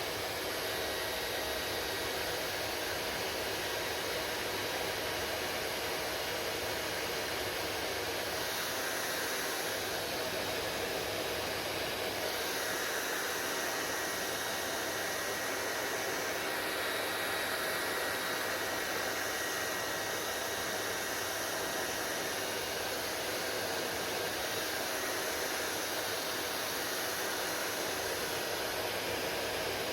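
Hair dryer running steadily with a continuous rushing of air, its tone shifting slightly a few times.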